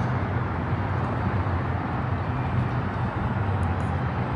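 Steady hum of city traffic heard from high above the street, an even low rumble with no single vehicle standing out.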